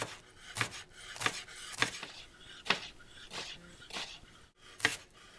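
A chef's knife shredding Napa cabbage on a cutting board: about eight crisp cuts, a little under two a second, each stroke slicing through the leaves onto the board.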